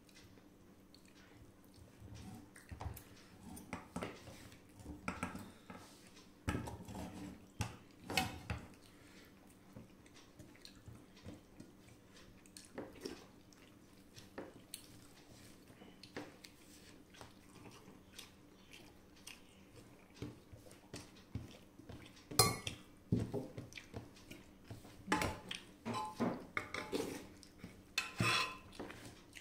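Fingers scraping and pressing food across a stainless steel plate while eating rice and dal by hand, making scattered small clinks and scrapes. They come thicker and louder in the last several seconds.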